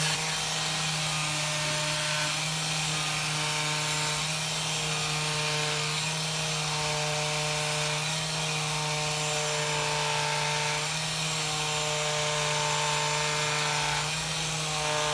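Steady buzz of a small electric motor, with higher tones above it that shift in pitch every second or two.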